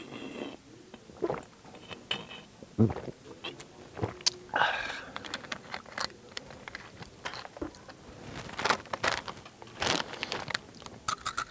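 Loud, exaggerated open-mouthed crunching and chewing of Takis rolled tortilla chips, a fast, irregular run of sharp crunches.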